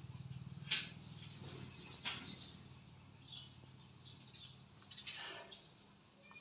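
Quiet outdoor ambience with three sharp clicks spread through it, a low steady hum that fades out about two-thirds of the way through, and a few faint high chirps.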